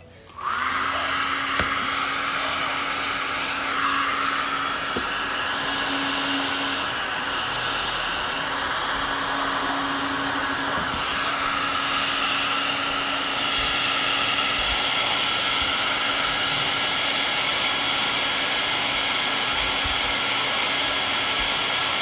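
Hand-held hair dryer switched on about half a second in and running steadily, a continuous rush of air with a motor hum. It is heating the glued-on interior door handle to soften the adhesive so the handle can be pulled off.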